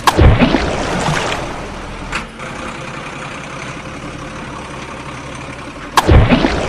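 Toy vehicles plunging into a muddy water pit: a loud splash at the start and another about six seconds in, each with a deep thud. In between there is a steady noise with a single click about two seconds in.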